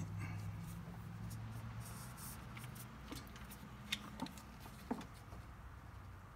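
A few faint, scattered clicks and taps of a socket ratchet and gloved hands working a car's oil drain plug loose, over a low hum that fades out about a second in.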